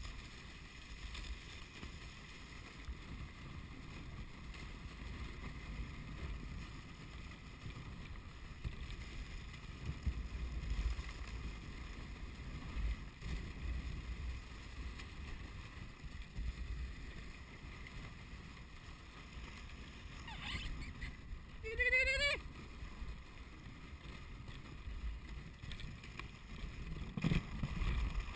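Dog sled runners sliding over snow, a steady low rumbling hiss. About two-thirds of the way through, a short rising call cuts through once.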